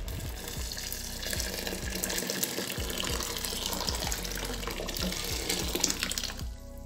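Just-boiled water poured in a steady stream into a pot of beans, splashing as it fills; the pour stops near the end.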